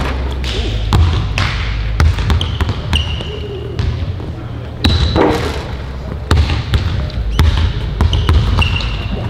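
Several basketballs bouncing on a hardwood gym floor: a busy, uneven run of dribble thuds and knocks, with a few short sneaker squeaks.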